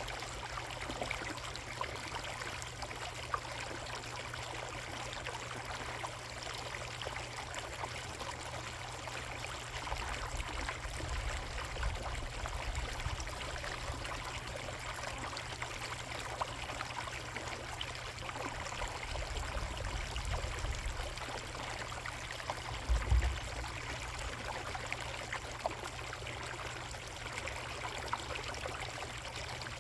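Koi pond water running and trickling steadily. Low rumbles come and go, and a short dull thump sounds about three-quarters of the way through.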